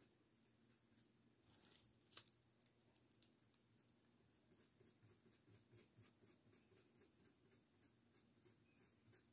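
Faint, rhythmic scratching of a paintbrush stroked over fabric, about three to four strokes a second. There are louder scrapes about two seconds in as the brush is worked in a small paint pot.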